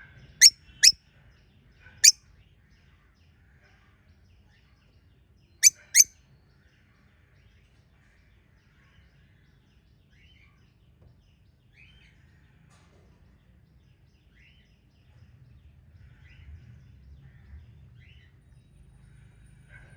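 Small pet parrots chirping: five loud, sharp, high-pitched chirps in the first six seconds, in pairs and singly, then fainter short chirps every second or two.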